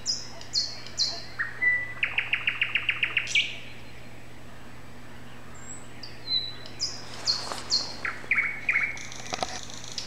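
A songbird singing in separate phrases. A run of short high notes ends in a fast, even trill of about eight notes a second, and after a pause of a few seconds comes another phrase of high notes.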